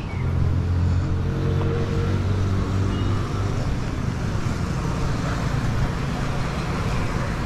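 Street traffic with a motor vehicle's engine running close by, its hum strongest in the first couple of seconds and then settling into a steadier traffic noise.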